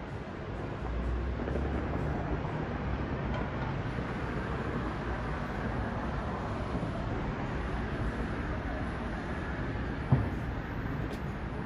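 Distant fireworks over a city, heard as a low rumbling boom about a second in over a steady wash of traffic noise, with one sharp bang near the end.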